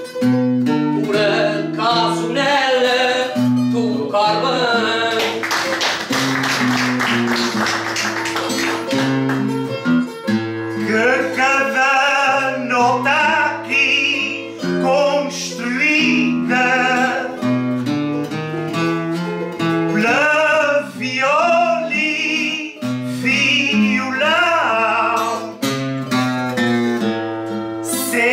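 Live folk music on plucked strings: a guitar plays stepping bass notes under a wavering melody, with a passage of fast strumming around five to nine seconds in.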